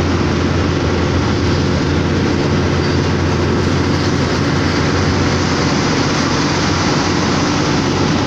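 Diesel truck engine running steadily at highway speed, heard from inside the cab, with a continuous hiss of tyres on the wet road.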